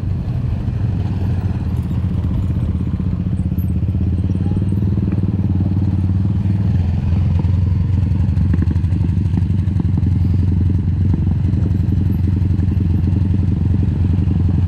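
Off-road vehicle engine running steadily under way, its note shifting about seven seconds in.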